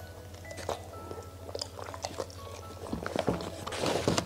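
Close-miked chewing of a bite of fried tofu with sambal: wet mouth clicks and small crunches, over soft background music. Near the end, a dense rustle as a hand scoops rice off the paper liner.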